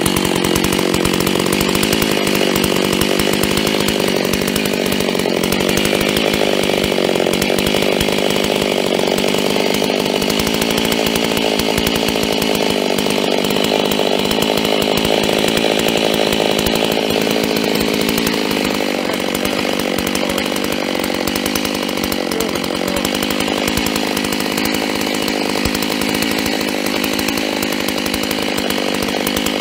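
FarmerTec G388 chainsaw, a copy of the Stihl MS380 with its 72cc two-stroke engine, running hard while it cuts rounds off a log. It runs a little quieter from about two-thirds of the way through.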